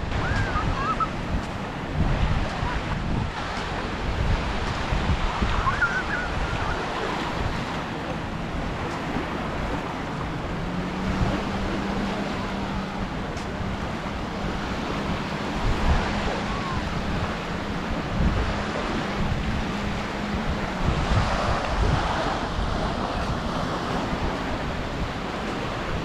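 Small waves breaking and washing up on a sandy beach, with wind buffeting the microphone. A faint steady hum runs underneath through the middle part.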